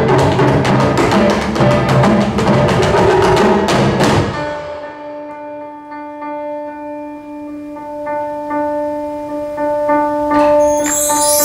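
Live tap dance with taiko drums and hand percussion playing a dense, fast rhythm that breaks off sharply about four seconds in. A held ringing chord follows, with a few light strikes over it, and the music builds again near the end.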